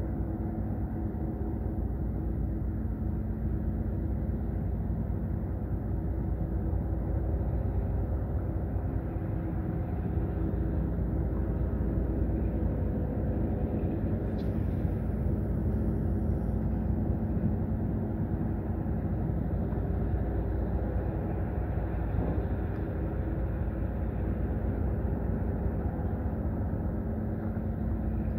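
An engine running steadily: an even, low drone whose pitch does not change.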